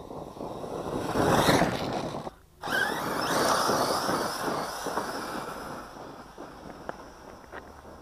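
Brushless electric 1/8-scale RC monster truck driving on loose dirt: the motor's whine and the tyres churning dirt build to a peak as it passes close. The sound breaks off abruptly about two and a half seconds in, then returns loud with a high whine and fades slowly as the truck drives away, with a few sharp ticks of flung gravel near the end.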